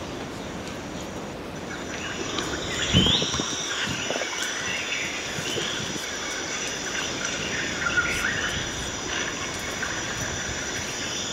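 Outdoor natural ambience: a steady high insect drone with scattered short chirping animal calls, and a single sharp knock about three seconds in.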